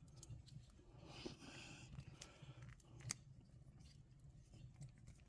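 Near silence with a few faint clicks and light rustling from a folding pocket knife being handled.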